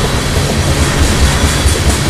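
Loaded railroad tank cars of an oil train rolling past at close range: a steady, loud rumble of steel wheels on the rails.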